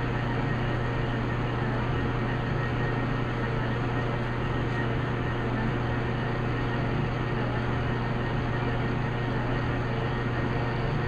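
Metal lathe running steadily in back gear while a knurling tool rolls along a steel workpiece: a constant motor hum under an even mechanical noise.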